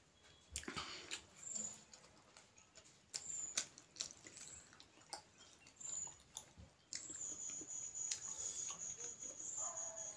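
Close wet chewing, lip smacks and small mouth clicks of someone eating soft momo dumplings with her hands. A faint steady high tone comes in about seven seconds in.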